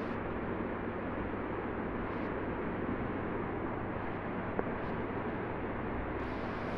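A 5-litre laboratory recirculating chiller bath running with its circulation pump on and water circulating through the bath: an even, steady hum with a hiss over it.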